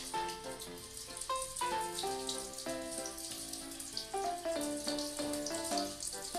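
Background music playing a melody over water running from a bathtub tap, splashing as a baby monkey's hands play in the stream.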